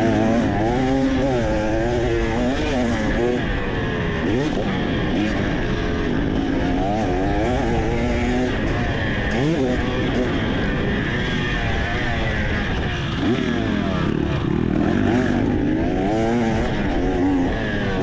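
2023 KTM 300 XC fuel-injected two-stroke single being ridden hard, its pitch rising and dropping again and again as the throttle is opened and shut through corners and straights. A steady rush of wind and road noise lies under it.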